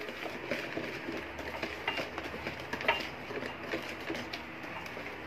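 Wire balloon whisk beating thick sponge-cake batter in a plastic bowl: a quick run of wet swishing with small clicks of the wires against the bowl, a couple of sharper ticks among them.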